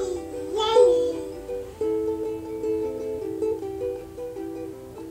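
Soprano-sized ukulele strummed in chords, the notes ringing on between strums. About a second in there is a short wavering vocal sound.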